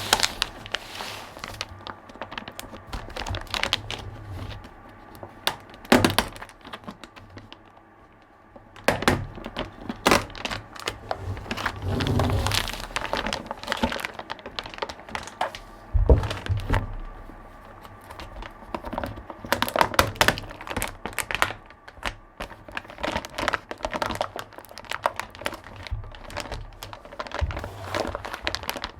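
Packaging and hardware being handled: irregular knocks, clicks and thunks with crinkling of wrapping as the box is unpacked.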